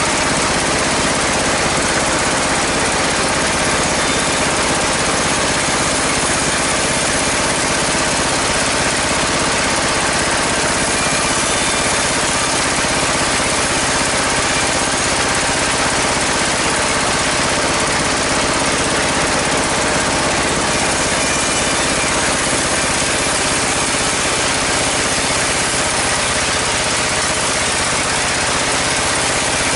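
Sawmill bandsaw and its drive engine running steadily.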